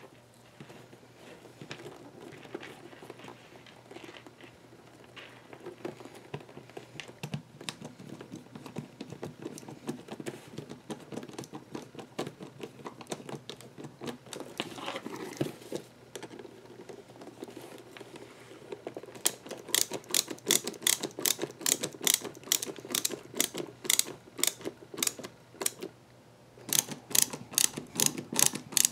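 Small electric screwdriver driving brass Chicago screws into a leather tab. At first there is irregular clicking and handling noise, then about two-thirds in a steady run of sharp clicks, about three a second, with a short pause near the end.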